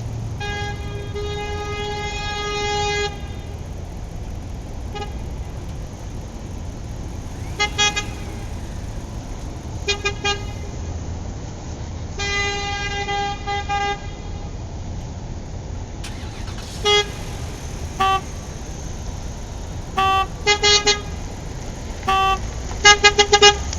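A single-pitch horn honking: a long blast of about two and a half seconds, another of about two seconds midway, and many short toots in between and after, coming in quick pairs and triples near the end, over a steady low rumble.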